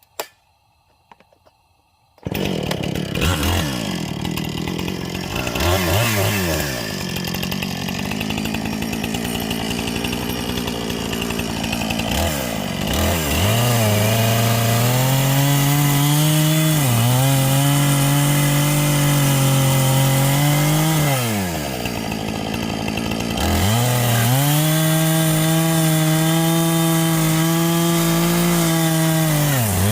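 Husqvarna two-stroke chainsaw coming in suddenly about two seconds in, revved up and down several times, then held at steady high revs as it rips through a black walnut crotch, the pitch dipping briefly a few times.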